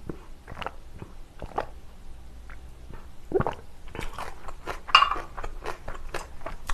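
Close-miked chewing and wet mouth sounds, in irregular short strokes. About five seconds in, a glass drinking jar clinks sharply as it is set down on the table, the loudest sound here.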